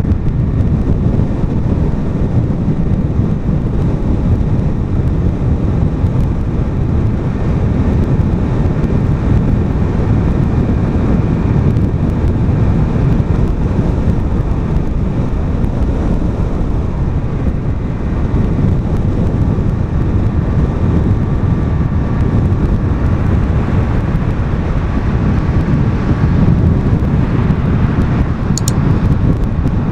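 Wind and road noise from a car driving at speed: a steady, loud rush, heaviest in the low end, with wind buffeting the microphone.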